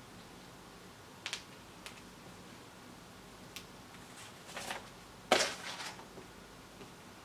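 Small electronic components being handled by hand: a few light clicks and taps, then a louder brief rustle a little past five seconds in.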